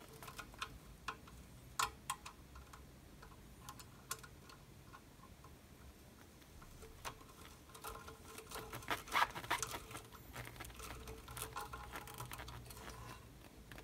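Faint, irregular clicks and scraping of a screwdriver turning self-tapping screws into a sheet-metal chassis, with the clicks coming more thickly in the second half.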